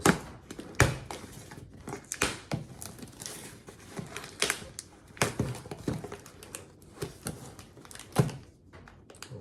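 A taped mailing package being handled and picked open by hand: irregular scratching, tapping and crinkling as the doubled-up packing tape resists.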